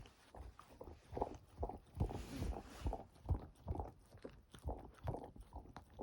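A dog licking and mouthing a rubber Kong toy stuffed with treats, making irregular short smacks and knocks about two a second.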